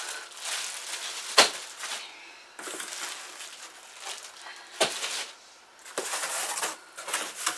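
Plastic wrapping crinkling and rustling as plastic-wrapped metal bed-frame rails and cardboard packing are handled. Two sharp knocks stand out, about a second and a half in and near five seconds in.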